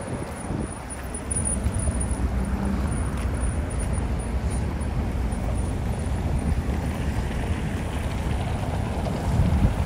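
Cars driving past on a cobblestone street: a steady rumble of tyres on the stones and engines.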